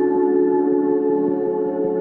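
Ambient background music: a chord of long, steady held tones.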